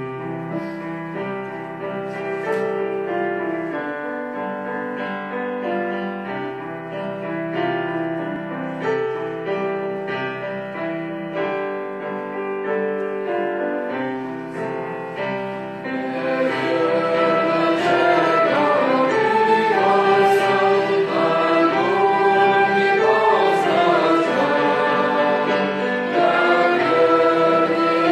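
Music: a slow keyboard introduction of held chords, then about sixteen seconds in voices come in singing over it and the music grows louder and fuller.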